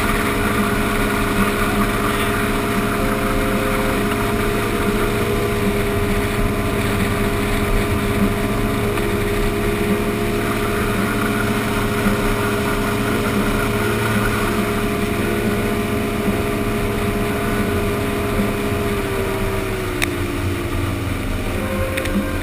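A 16-foot Sea Ray center console's 175 hp motor running steadily at speed, under the constant rush of spray and water along the hull. The engine note drops a little near the end.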